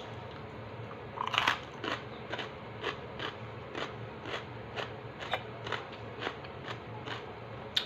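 Close-up crunching and chewing of crispy chicharon: a loud first bite about a second in, then steady crisp crunches at about two per second as it is chewed.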